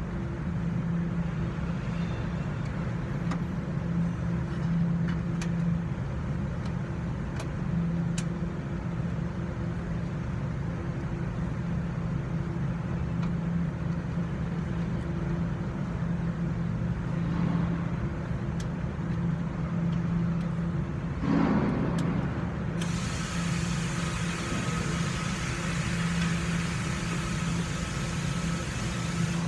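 A steady low mechanical hum with a few faint clicks. Just over twenty seconds in, a short rustle is followed by a steady hiss that joins the hum and carries on.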